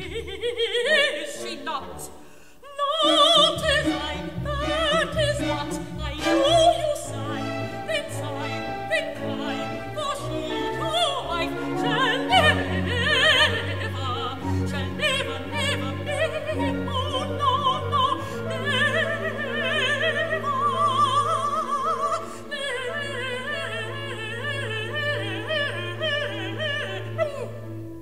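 Operatic singing with wide vibrato over an orchestra. The music dips briefly about two and a half seconds in, and steady low notes are held underneath through the second half.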